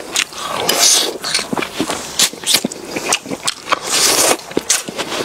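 Close-miked eating: chewing and gnawing meat off a bone, many wet smacking clicks, with two hissing sucks at the bone, about a second in and again near four seconds.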